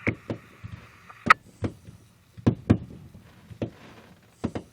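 Fireworks going off at a distance: about a dozen irregular bangs and pops, the loudest just over a second in. A police scanner's static hiss runs under the first second and cuts off with a click.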